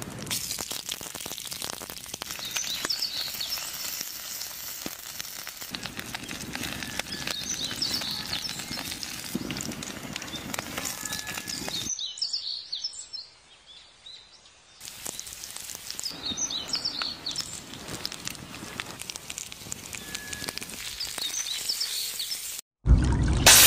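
Seafood sizzling on a stone slab heated over an open fire, with birds chirping in the background. The sizzling drops away for a few seconds about halfway through, then returns.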